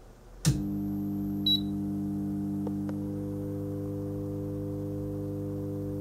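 Samsung CM1929 commercial microwave oven switched on with a sharp click about half a second in, followed by a loud, steady humming like an energised transformer, with a short high beep about a second later. The hum is the fault: the oven hums as if a transformer is energised while the current meter reads almost nothing.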